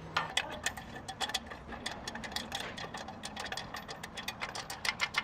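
Hand ratchet wrench clicking as bolts are turned on a bumper bracket: a run of quick, sharp ticks, several a second, with short breaks between strokes.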